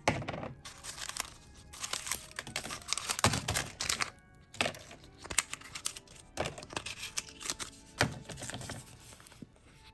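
Plastic toy packaging crinkled and torn open by hand, a run of irregular crackles and rips, over light background music.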